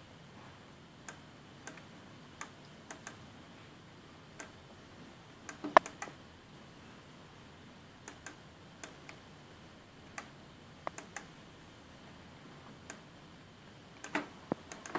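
Scattered, sharp clicks of a computer pointing device's buttons while stars are placed in a paint program, at irregular intervals of about a half second to a second. The clicks bunch together and are loudest about six seconds in and again near the end.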